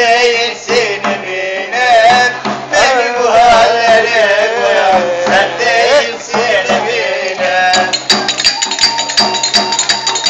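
Live Middle Eastern–style folk music: a wavering, ornamented melody over regular frame-drum beats. About eight seconds in, rapid metallic jingling joins.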